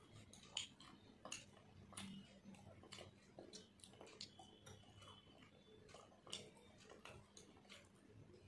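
Faint, close-miked chewing: irregular soft wet mouth clicks and smacks, several a second, as a person chews a mouthful of luchi with mutton curry.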